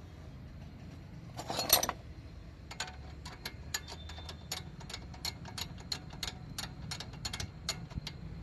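A short metallic clatter, then a ratchet wrench clicking in a steady run of sharp ticks, roughly three a second, as the Mercedes C200's front brake caliper bolts are run in. A low steady hum sits underneath.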